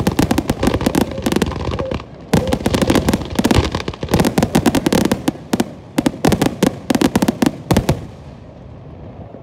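Fireworks finale: rapid, overlapping bangs and crackles of many aerial shells at once, thinning out and stopping about eight seconds in.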